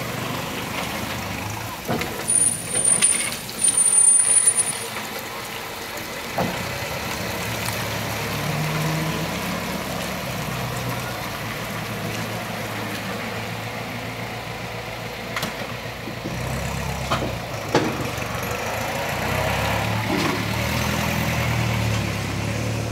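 Vintage road vehicles running: loud knocks and clatter with a thin high whine, heard twice, around three to four seconds in, then a low engine running steadily for the rest.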